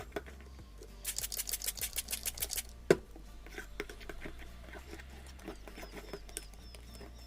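Slime being stirred in a bowl just after the borax activator goes in: a quick run of wet, clicky squelches and scrapes, with one sharper knock about three seconds in, then fainter ticking.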